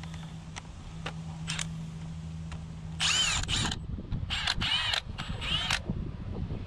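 A power drill run in four short trigger bursts, its motor whine rising and falling with each pull, starting about three seconds in. Before that there is a low steady hum and a few light metal clicks.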